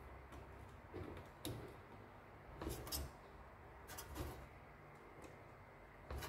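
Faint scattered clicks and taps of plastic wire connectors and a ribbon cable being pushed by hand into a bread maker's control circuit board, about half a dozen small clicks over a few seconds.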